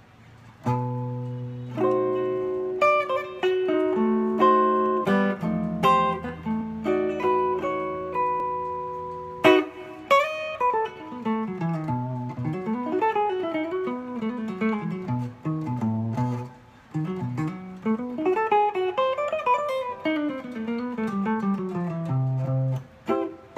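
Hollow-body electric guitar improvising. Held chords ring for the first nine seconds or so, then quick single-note runs climb and fall, and a chord comes near the end.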